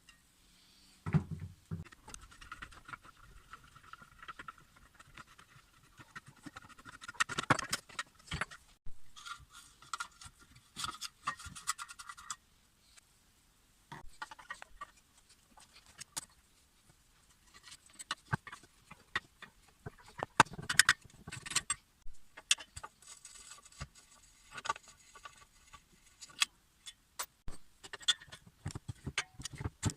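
Irregular clicks, clinks and scrapes of metal parts and hand tools being handled at a workbench, with a brief ringing hum at times.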